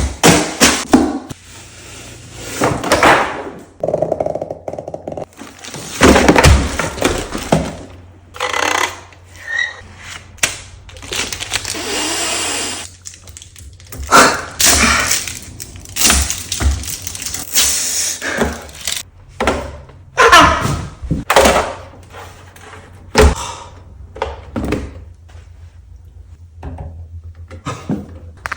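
Packaging being opened and handled: cardboard box parts sliding and scraping, wrapping rustling, and irregular thuds as pieces are knocked and set down.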